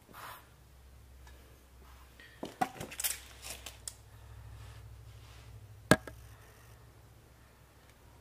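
Handling noise from a handheld camera moving around the outboard's lower unit: a few light knocks and taps about two and a half to four seconds in, then one sharp click near six seconds, over a faint low hum.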